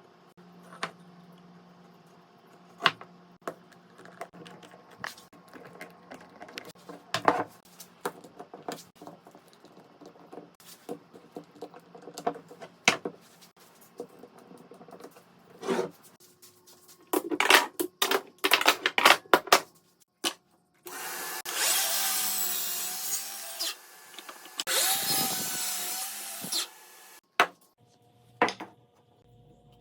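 Scattered knocks and clicks of wooden pieces and tools being handled, then a power tool runs twice, about two seconds each time, its motor pitch dipping slightly under load.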